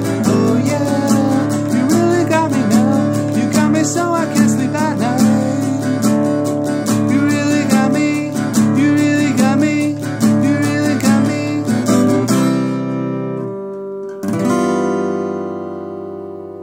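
Acoustic guitar strummed hard and fast in a steady rhythm. About twelve seconds in it stops on a chord, then a final chord is struck and left ringing as it fades out, ending the song.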